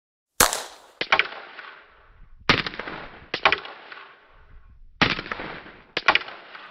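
Six gunshots at uneven spacing, roughly in pairs, each followed by a short echoing tail: a firearm being shot at a target.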